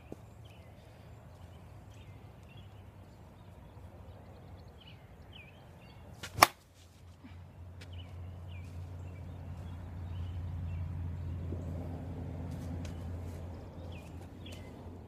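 A single sharp crack as an Avarice G2 softball bat strikes a softball off a batting tee, about six seconds in. Birds chirp faintly throughout, and a low rumble swells in the second half.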